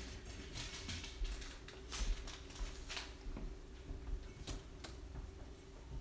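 Paintbrush working paint onto an owl piggy bank: scattered light scratches and taps at irregular moments, over a faint steady room hum.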